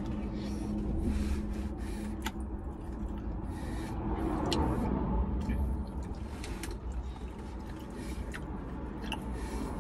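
Eating sounds: chewing, with a few short clicks and scrapes of a fork against a takeaway container, over a steady low rumble inside a parked car.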